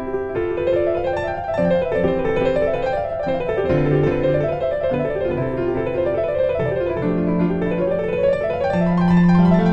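Background piano music, with flowing runs of notes that rise and fall over sustained low notes.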